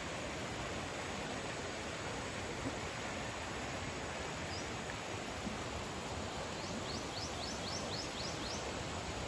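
Steady outdoor background hiss. Near the end a bird gives a quick run of about eight short, high, falling notes, about four a second.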